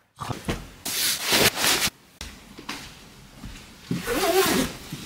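Fabric rustling and rubbing from a fleece jacket being handled and pulled closed, in several rough bursts, the longest about a second in. A short voice-like sound rides on a louder burst near the end.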